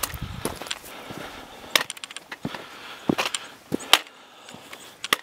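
Footsteps on bare rock: irregular scuffs and sharp clicks of boots stepping, the loudest about four seconds in.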